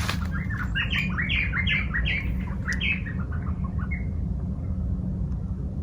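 A bird calling nearby: a rapid run of short, sharp chirping notes for about four seconds that then stops, over a steady low rumble.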